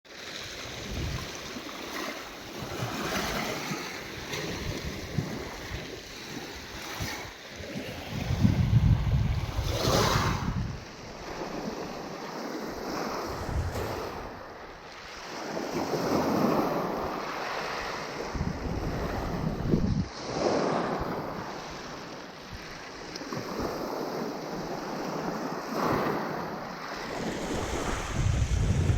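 Sea waves washing onto the beach, rising into a louder surge every few seconds, with wind buffeting the microphone.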